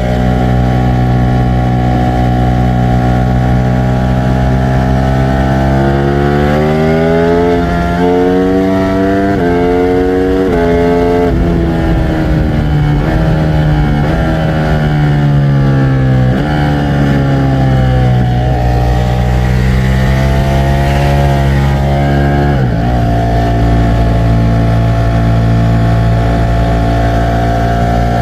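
Ducati Streetfighter V4 S's 1103 cc V4 engine under way: it pulls hard through the gears with quick upshifts between about 7 and 11 seconds in, then comes off the throttle and settles to a steady cruise, with a sharp drop in engine speed a few seconds from the end.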